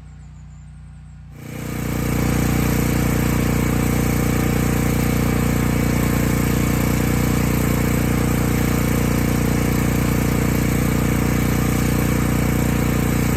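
Champion portable gasoline generator running steadily. It jumps from fairly quiet to loud about a second and a half in, then holds an even drone.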